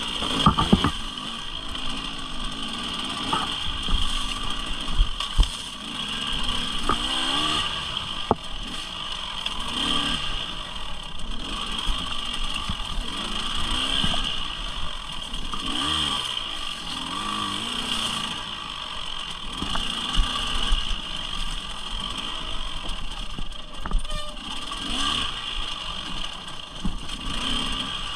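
Motorcycle engine running under way, its revs rising and falling repeatedly, with steady wind and road noise.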